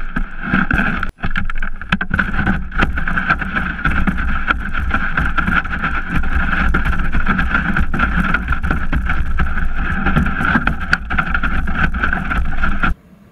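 Sled sliding over snow, heard from a camera mounted on the sled: a loud, steady scraping hiss with scattered knocks as it bumps over the snow. It cuts off suddenly near the end.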